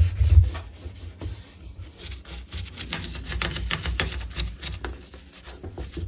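An old toothbrush scrubbing the rubber door seal of a front-loading washing machine, many quick back-and-forth rubbing strokes. Low bumping rumble in the first half second.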